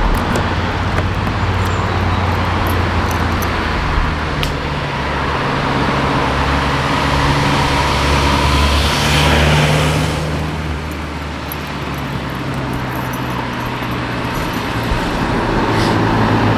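A motor running steadily with a low droning hum, swelling louder about eight seconds in and easing off again after ten seconds.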